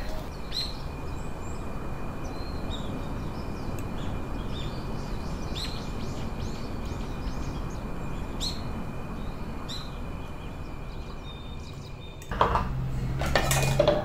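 Cutlery and dishes clinking now and then over a steady background hiss. Near the end, louder clattering of dishes at a kitchen sink begins.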